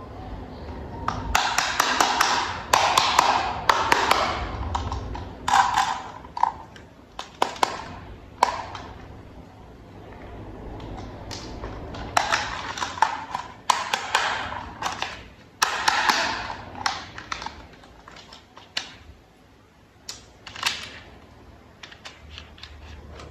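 Small plastic toy parts clicking, tapping and scraping as they are handled and fitted together, in bursts of sharp clicks and rustling scrapes with short pauses between.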